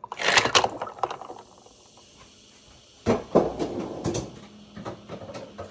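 Ice cubes clattering into a cup in two bursts about three seconds apart, followed by a few light clicks.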